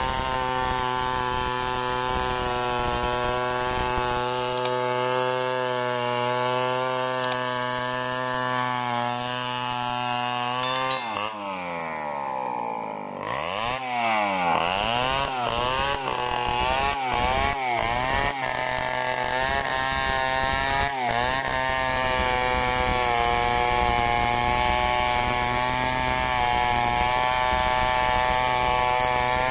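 Two-stroke chainsaw ripping a log lengthwise, running steady at full throttle under load. About eleven seconds in the engine falls off toward idle and is revved in a series of quick blips. It then settles back to a steady full-throttle run in the cut.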